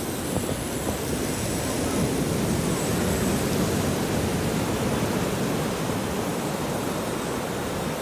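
Ocean surf washing up the beach: a steady rushing noise that swells a little in the middle.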